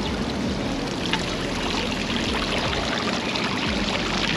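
Small decorative fountain: water splashing and trickling steadily.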